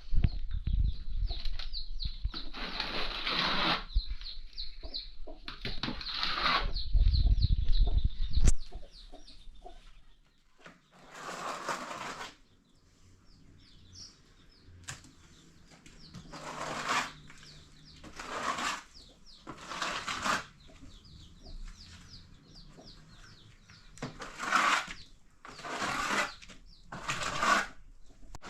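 Chickens clucking in a series of short calls, with quick repeated chirps from small birds. A low rumble, like wind on the microphone, dies away after about eight seconds.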